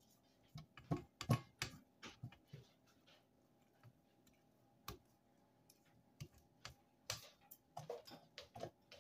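Scattered light clicks and knocks of a stand mixer's stainless steel bowl and beater being handled and the bowl twisted on its base, with the motor off. The clicks come in a cluster in the first two seconds, once near the middle, and again toward the end.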